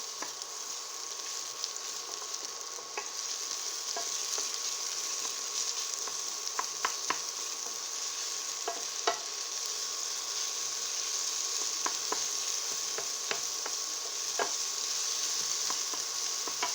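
Onion sizzling steadily in hot sesame oil in a frying pan, stirred with a utensil that clicks and scrapes against the pan every second or so.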